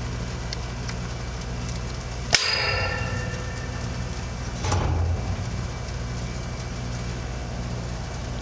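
A sharp metallic clink that rings for about a second, then a duller knock about two seconds later: metal tools or parts knocking against the sheet-metal cabinet of the condenser during a capacitor check, over a steady low hum.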